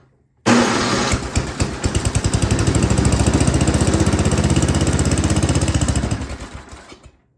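Yard King snowblower's small gas engine firing up on starting fluid sprayed into the carburetor, running with an even pulse for about six seconds, then fading and dying. It runs only on the starting fluid, a sign of fuel starvation that the mechanic traces to a mis-tuned carburetor whose high-end mixture screw is turned all the way in.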